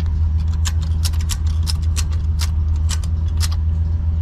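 Tow truck running with a steady low drone, overlaid by about a dozen short, sharp clicks at uneven spacing over about three seconds.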